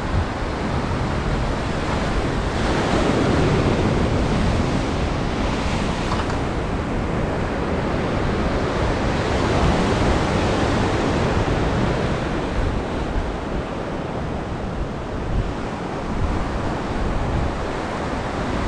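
Ocean surf washing against the shore, swelling and easing as waves come in, with wind buffeting the microphone.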